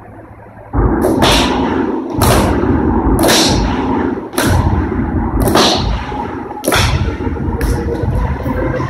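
Electronic dance track kicking in about a second in, with heavy bass and sharp, sweeping hits roughly once a second, over a low steady hum before it starts.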